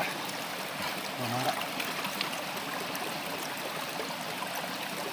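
Shallow rocky stream running steadily over stones, with a brief voice about a second in.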